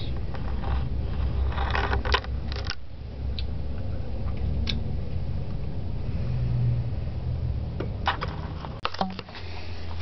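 Handling noise from a handheld camera being moved around: rustling and a few clicks, about two seconds in and again near the end, over a low steady hum.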